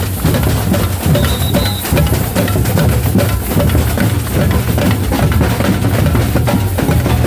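Batucada samba drumming: a percussion group playing a loud, steady groove, with deep bass drums under dense, fast strikes.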